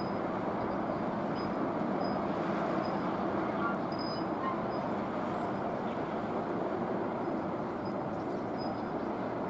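Steady, dense harbour background noise with no distinct event, flecked with faint short high peeps now and then.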